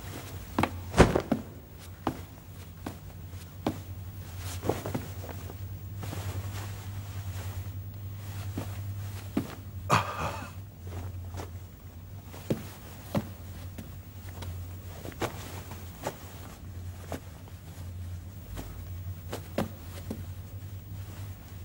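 Irregular footsteps and knocks on a hard floor, a dozen or so scattered sharp taps, over a steady low hum, with a short louder rustling noise about ten seconds in.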